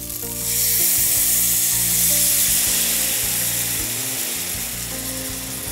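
Red wine poured into a hot frying pan of browned chicken pieces, hitting the hot oil with a loud sizzle about half a second in that slowly fades as the wine boils off.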